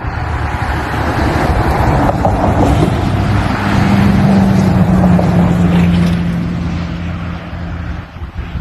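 A motor engine drones past for several seconds, its steady pitch sinking slightly as it goes, over a loud rush of wind on the microphone.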